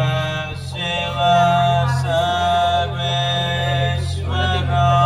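Male voice chanting a Sanskrit mantra to Shiva in long held notes over a steady low drone.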